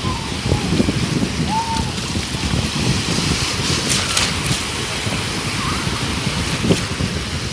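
Sea waves and water sloshing around the camera, with wind buffeting the microphone in a steady, heavy rumble.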